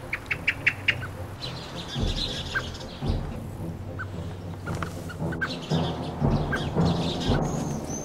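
Common blackbird alarm calls: a quick run of about six sharp chinks in the first second, then scattered calls and chatter. The birds are scolding a cat, a predator close by.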